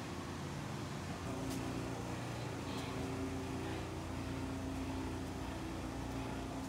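A steady low motor hum that shifts slightly in pitch about a second in, with a couple of faint ticks.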